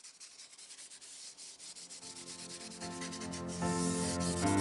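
Hand sanding of a black cherry wooden plate with an abrasive pad, a quick run of back-and-forth rubbing strokes. Background music fades in from about halfway and grows louder.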